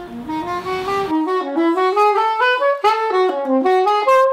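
Unaccompanied saxophone playing a quick melodic phrase of short notes that step up and down, ending on a held note near the end.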